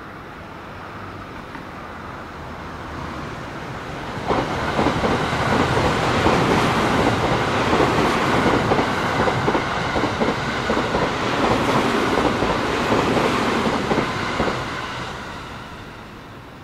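JR West 285 series Sunrise Seto/Izumo sleeper electric train passing. It swells as it approaches and turns sharply louder about four seconds in, then runs for roughly ten seconds with rapid wheel clacks over the rail joints before fading as the last cars go by.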